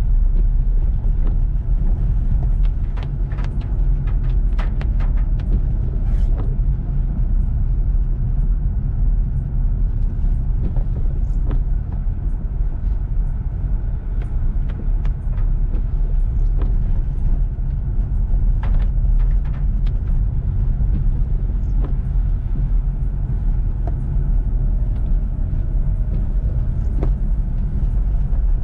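Car driving in heavy rain: a steady low rumble of engine and road noise, with scattered sharp ticks that bunch up a few seconds in and again a little past the middle.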